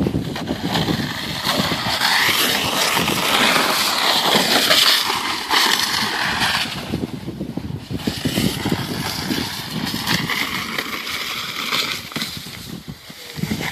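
Sled sliding fast down an icy snow track: a continuous scraping hiss, loudest in the first half, dipping briefly around the middle and then going on.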